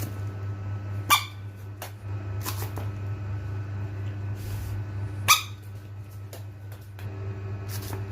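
A frog giving short, sharp squeaky calls: two loud ones about a second in and about five seconds in, with a few fainter ones between. A steady low hum runs underneath.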